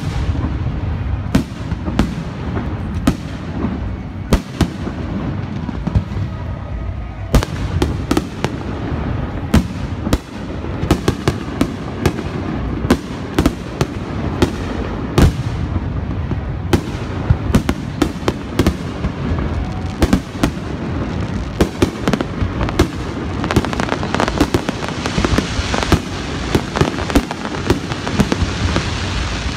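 Aerial firework shells bursting in rapid succession over a continuous rumble of booms, with many sharp bangs that come thicker after several seconds. A hiss of crackling joins in near the end.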